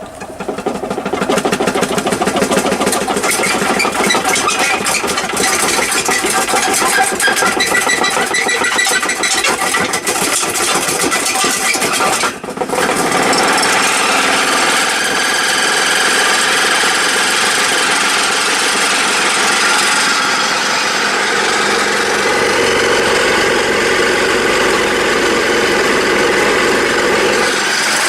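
Homemade vibrating tumbler, driven by a washing machine motor and loaded with glass bead media, starting up and running noisily, rattling on legs that stand on an uneven floor. The noise dips for a moment about twelve seconds in, then carries on with a changed tone.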